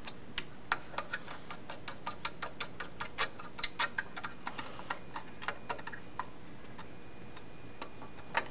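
Screwdriver turning screws back into a Square D motor starter's coil and magnet assembly: a string of sharp, irregular clicks, about three a second, that stops about six seconds in, with one more click near the end.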